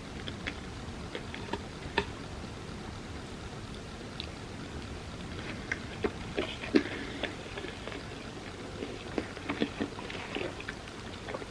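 Close-miked chewing of a soft, sticky dessert lasagna made of tortillas with chocolate and peanut butter: scattered wet mouth clicks and smacks. They come more often from about halfway in, and the loudest is a little past the middle.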